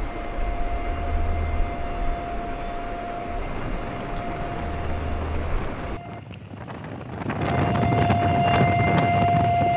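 Steady outdoor noise around an illuminated patrol ship at sea: a low hum with wind on the microphone and a thin steady tone. The sound breaks off about six seconds in and returns louder and rougher.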